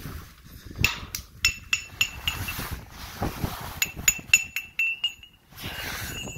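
Irregular run of sharp metallic clinks and taps, each with a brief ring, from about a second in to about five seconds in, then a short burst of hiss near the end.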